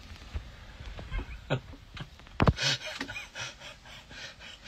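A front door being pushed against a person slumped on the floor behind it: scattered knocks and rubbing, with one heavier thump about two and a half seconds in, followed by brief rustling.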